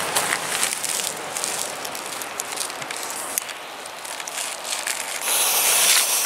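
Crunching and rustling on gravel with scattered small clicks, then about five seconds in a firework fuse catches and hisses loudly.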